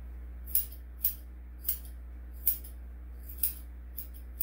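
Grooming scissors snipping a dog's coat, about seven short, crisp cuts at an uneven pace.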